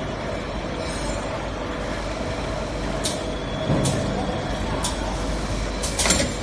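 Six-station tapping machine running: a steady machine noise, with short sharp hisses of released compressed air about five times in the second half, the loudest a double hiss near the end.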